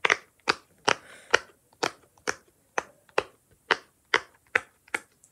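Silicone pop it fidget toy, its bubbles pressed one after another, giving about a dozen crisp pops at an even pace of roughly two to three a second. This is the side she calls the good side, the one that pops well.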